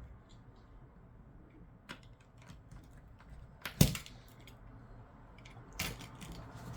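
Scattered small clicks and taps of hands working on an opened tablet while applying strips of double-sided adhesive tape, with a sharp tap a little under four seconds in and another about two seconds later.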